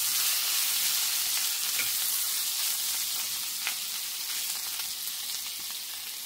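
Sliced spiny gourd (kantola) sizzling in hot oil in a kadhai, a steady hiss that eases slightly toward the end. A metal spatula stirring it scrapes faintly against the pan a couple of times.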